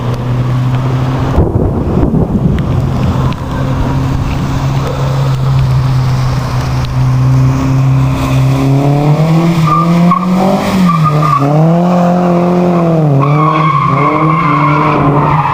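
Drift car running at steady revs for several seconds, then the revs rising and dipping again and again as the throttle is worked through the slide, with tyres squealing near the end.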